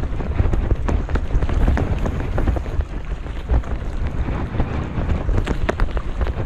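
Wind buffeting the microphone, with the rustle and scattered sharp clicks and knocks of a monofilament gill net being hauled hand over hand into a small fishing boat.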